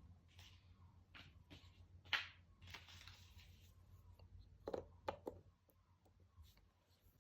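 Jigsaw puzzle pieces being handled: quiet scattered taps and clicks, a sharper click about two seconds in followed by a short rustle, and a quick cluster of knocks around five seconds in.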